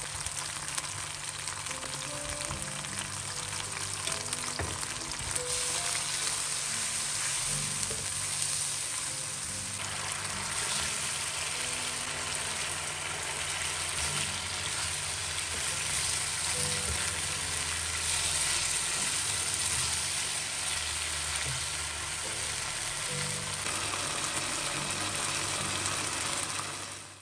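Sauce with fried tofu sizzling and bubbling in a stone-coated wok, as a steady hiss, with now and then a silicone spatula stirring it. Soft background music plays underneath.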